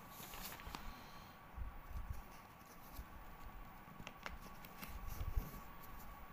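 Faint scattered small clicks and soft rustling bumps of handling, with one louder soft thump about five seconds in, over a faint steady high-pitched hum.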